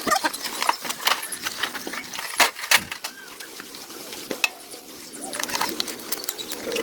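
Scattered light knocks and clicks at an uneven pace, with two sharper ones about two and a half seconds in.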